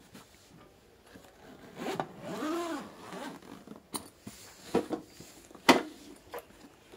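The zipper of a hard-shell carrying case being pulled open, a drawn-out rasp with a whine that rises and falls as the slider runs around the case. A few sharp knocks follow as the case is handled and set down.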